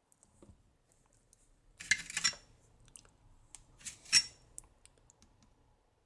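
Small metallic clinks and scrapes from hand soldering: a soldering iron and solder wire moving between through-hole resistor joints on a circuit board. There is a short scratchy scrape about two seconds in and a sharp clink about four seconds in, with light ticks in between.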